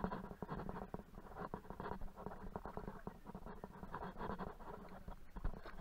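Rustling and scratching close to the microphone, with many small irregular clicks, from hands handling the camera and a plastic bag.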